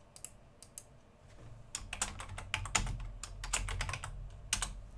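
Typing on a computer keyboard: a few scattered keystrokes at first, then a quick run of key presses through the middle, and two last clicks near the end.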